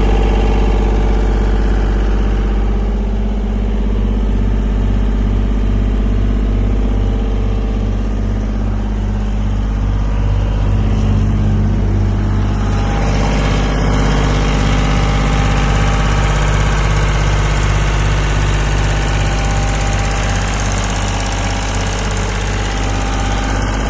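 Atlas Copco engine-driven portable air compressor running steadily with an even low pulse. About halfway through, a rushing hiss joins the engine sound and carries on.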